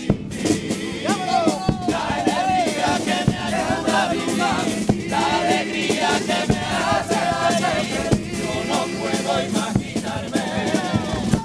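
Male chirigota chorus singing together, backed by Spanish guitars and the carnival bass drum and snare drum beating the rhythm.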